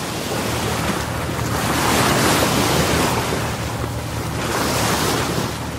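Ocean surf breaking and washing up a sandy beach, swelling about two seconds in and again near the end, with wind buffeting the microphone.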